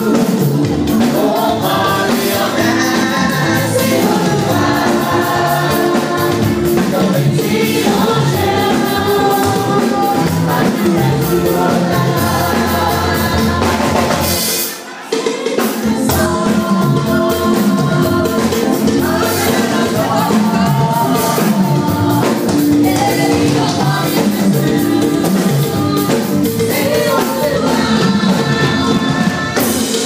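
Children's church choir singing a gospel song, led on a microphone and backed by drums. The sound drops away for a moment about halfway through, then the song carries on.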